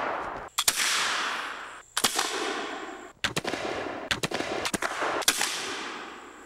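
A ragged string of black-powder flintlock musket shots, about eight at uneven intervals, some in quick pairs. Each shot is followed by a long rolling echo.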